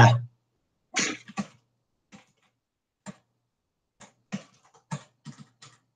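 Computer keyboard keystrokes: scattered single clicks, then a quicker run of taps in the last couple of seconds.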